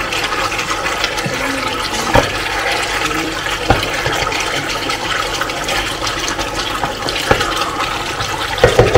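Pork adobo sauce bubbling steadily in a nonstick pot, with a wooden spatula knocking against the pot a few times as the meat and eggs are stirred.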